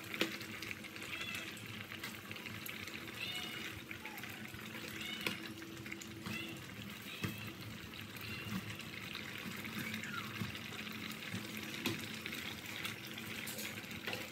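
Soup simmering and sloshing in a metal pot as a metal ladle stirs it, with a few sharp clinks of the ladle against the pot.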